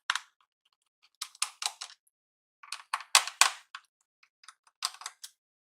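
Short clusters of small, sharp clicks and taps from a screwdriver working the screws on the plastic underside of a Lenovo G50-80 laptop, in about four quick bursts.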